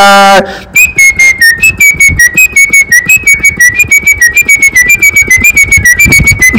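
Background music: a quick whistled tune of short, clipped notes, many a second, stepping up and down in pitch.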